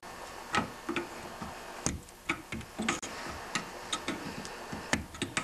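Wide flat pry tool working between an ignition coil and its metal magneto bracket, making irregular metal clicks and taps, a few a second, as the coil is levered up off the bracket.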